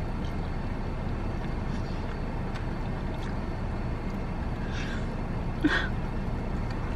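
Steady low hum of a car idling, heard inside the cabin, with faint chewing and mouth noises from eating chicken. There is a short louder mouth sound about five and a half seconds in.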